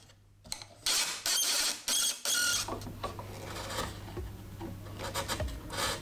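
Wooden parts knocking and sliding against each other in a few short, loud clattering bursts, then a chisel paring and scraping at the end of an oak block with small ticks.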